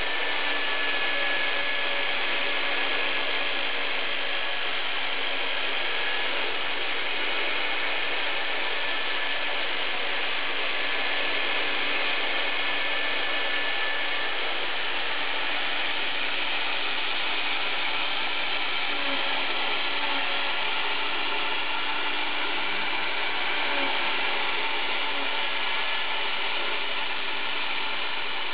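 Homemade CNC router milling: the router motor used as its spindle runs and cuts steadily, with the dust-extraction vacuum drawing through its dust shoe.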